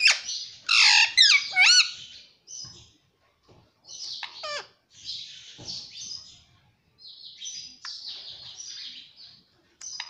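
Ringneck parrot calling loudly, with a few whistled calls that sweep up in pitch in the first two seconds, then several short harsh squawks and chattering bursts with brief pauses between them.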